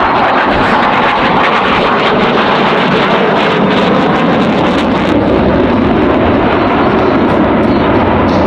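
F-22 Raptor's twin F119 jet engines: a loud, steady roar of jet noise from the fighter in display flight, with a ragged crackle a few seconds in.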